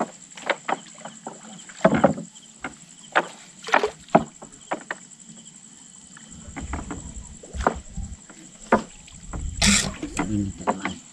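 Water splashing and sloshing in irregular strokes as a fishing net is worked in a river, with a louder splash about two-thirds of the way in.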